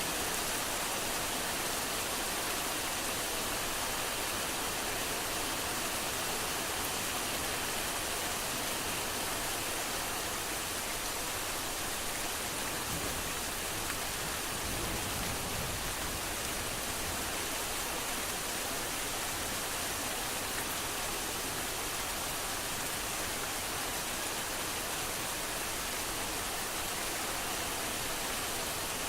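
Heavy rain falling steadily, a dense, even hiss of countless drops with no distinct individual strikes.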